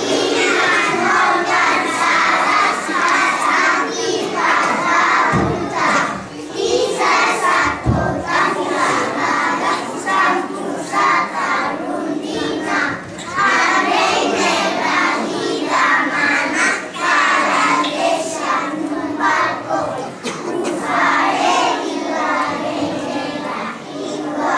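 A large group of four- and five-year-old children singing together in unison, many young voices at once, loud and with short pauses between phrases.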